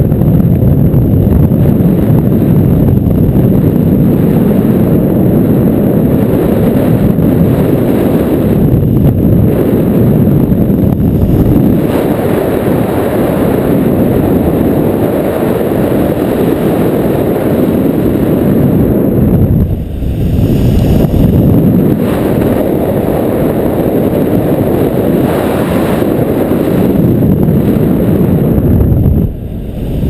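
Airflow over a camera microphone during a tandem paraglider flight: a loud, steady rush of low wind noise, dipping briefly twice, about two-thirds through and near the end.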